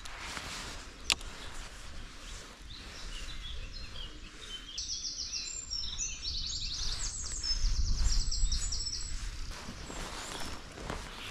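Songbirds singing, quick repeated chirps and trills, over a low outdoor rumble that swells about eight seconds in. A single sharp click sounds about a second in.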